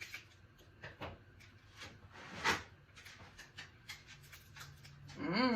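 Close-up eating sounds from a seafood boil: scattered wet mouth clicks and smacks of chewing, with one louder snap about halfway through. A hummed 'mm' of enjoyment starts near the end.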